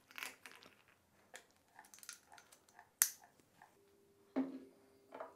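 Glass beer bottles handled on a wooden table: scattered small clicks and knocks, a sharp click about three seconds in, and two heavier knocks near the end as a bottle is set down.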